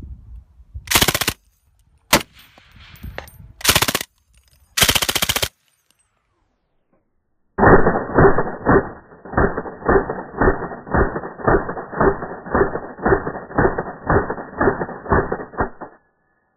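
Short bursts of automatic fire from an MGA SAW K light machine gun: four sharp bursts in the first five seconds or so. After about two seconds of silence comes a long run of duller, muffled pulses lasting about eight seconds, which stops abruptly.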